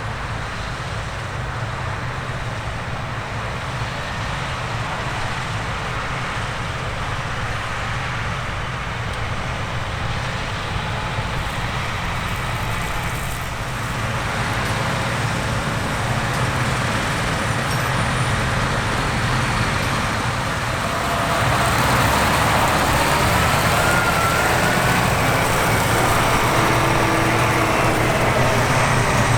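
Heavy diesel harvest machinery running steadily, with a deep engine hum under mechanical noise. It grows louder about halfway through and steps up again about two-thirds of the way in, as the machine draws nearer.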